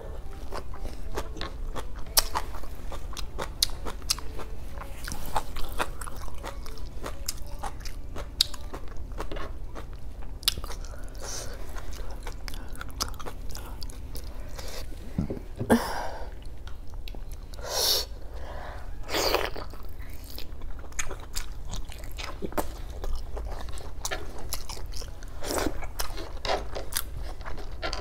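Close-miked chewing and mouth sounds of someone eating boiled pork hock and rice with her fingers. There are many small clicks throughout, and a few louder mouth noises near the middle.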